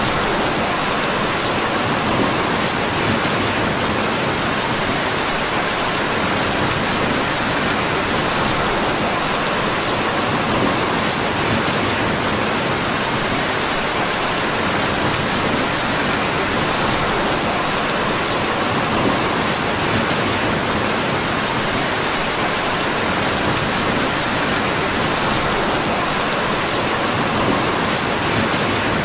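Steady rain falling, an even, unbroken hiss with faint scattered ticks of drops.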